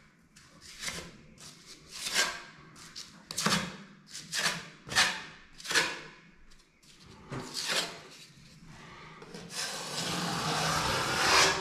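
Repeated short scraping strokes of a tool spreading joint compound over a wall and paper drywall tape, about two a second, then one longer continuous stroke near the end.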